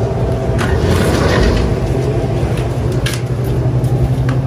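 A steady low hum with a rustling noise about a second in and a few short clicks or knocks.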